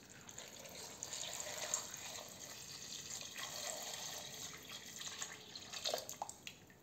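A stream of water pouring into a stainless steel pot of cubed raw potatoes, splashing over them as the pot fills; it stops near the end.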